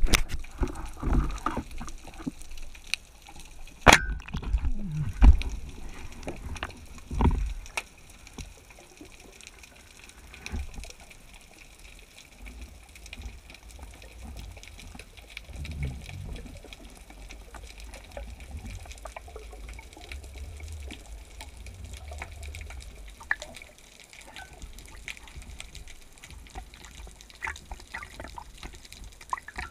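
Muffled underwater sound heard through a camera's waterproof housing: low water rumble with irregular low thuds and scattered small clicks, and one sharp crack about four seconds in.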